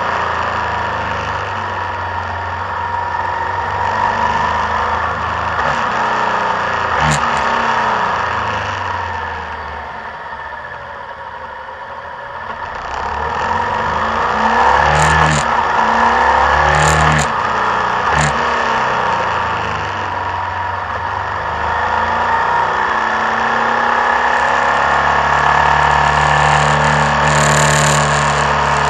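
Motorcycle engine running under a rush of wind, picked up by a camera mounted on the bike. The engine note rises and falls through a run of corners, drops to its quietest about ten seconds in, then picks up again. A few short sharp clicks come in the middle stretch.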